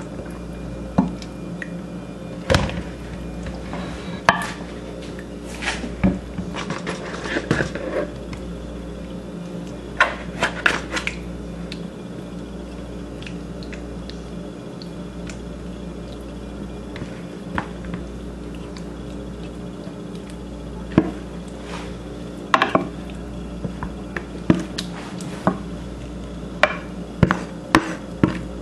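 Irregular clinks, taps and knocks of a utensil and bowl against a baking dish as marinated fish and sliced vegetables are spooned into it, coming in scattered clusters over a steady low hum.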